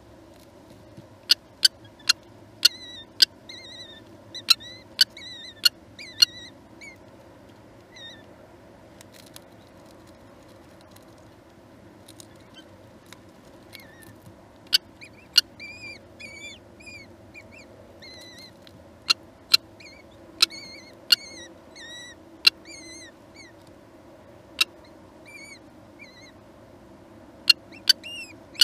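Kestrel chicks giving short, thin, wavering begging chirps while being fed in the nestbox, with loud sharp clicks in clusters among them, over a steady low hum.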